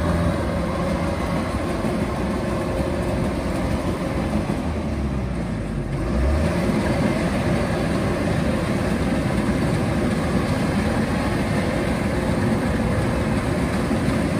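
Kubota DC-105X combine harvester running steadily as it cuts and threshes rice, its diesel engine under load. It grows a little louder about six seconds in.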